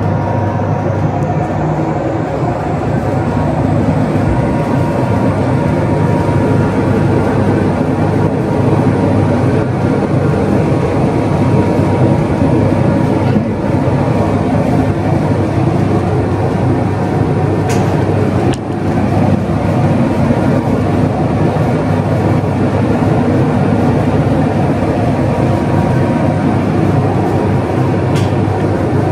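Carpet-beating machine running with a loud, steady mechanical racket, with a couple of brief sharp clicks about two-thirds of the way through.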